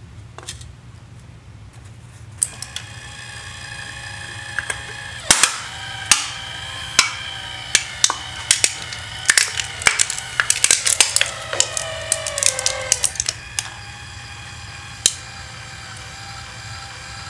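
A 12-volt electric linear actuator whines steadily as it drives a wooden block into an aluminium soda can. The can crumples with a long series of loud, sharp cracks and pops over about eight seconds, and the motor's pitch sags under the load near the end of the crush. One more sharp click comes near the end while the motor keeps running.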